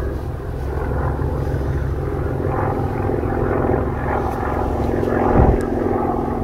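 Nanchang CJ-6's nine-cylinder radial engine and propeller droning steadily as the plane flies past overhead. A brief low thump comes about five and a half seconds in.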